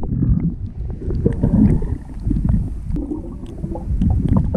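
Muffled churning and gurgling of seawater around a submerged camera as a swimmer dives, with scattered small clicks and knocks.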